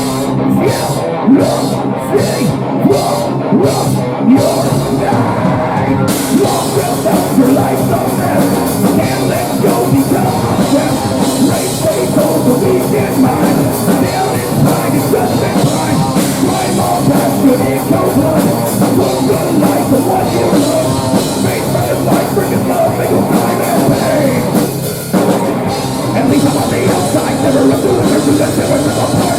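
Rock band playing live with drums and electric guitars in a heavy, loud style. It opens with evenly spaced cymbal strokes over the guitars, the full band comes in heavier about six seconds in, and there is a brief break near the end.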